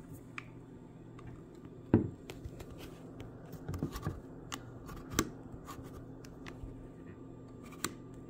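Scattered metal clicks and knocks from a semi-automatic pistol's slide and frame being handled, the loudest a sharp click about two seconds in and another about five seconds in. A hollow-point cartridge is jammed in the chamber after a failed load.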